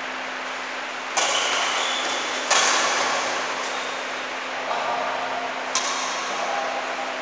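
Badminton rackets striking a shuttlecock in a doubles rally: four sharp hits about a second or so apart, the loudest about two and a half seconds in, each ringing on in the hall's echo over a steady background hum.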